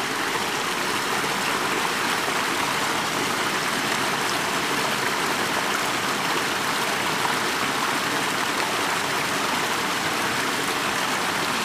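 Steady rush of flowing water from a stream or small waterfall: an even, unbroken hiss.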